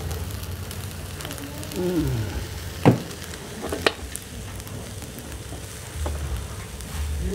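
Fried rice sizzling in a steel wok while a metal spatula stirs and scrapes it, with two sharp metal clinks about three and four seconds in.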